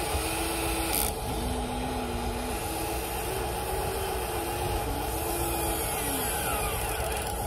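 Electric motors of a Huina RC excavator whining as its boom, arm and bucket move. The whine steps up and down in pitch every second or so over a steady electric hum.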